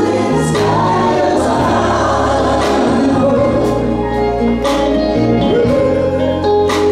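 Live gospel song: a woman singing lead into a microphone over a band, with steady bass notes and sharp accents about once a second.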